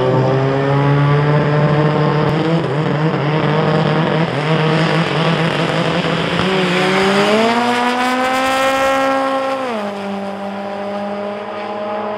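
Drag-race car engine running: it holds a steady note, revs up about seven seconds in and holds high for about two seconds with a hissing rush, then drops back sharply.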